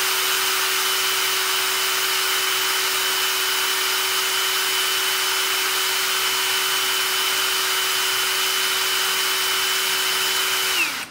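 Einhell TE-CD 18/50 brushless 18 V cordless drill/driver running with no load in low gear (speed 1, about 500 rpm at the chuck): a steady motor whine with a fan hiss, constant in pitch. Near the end the trigger is released and the motor brake stops it quickly, the whine falling briefly.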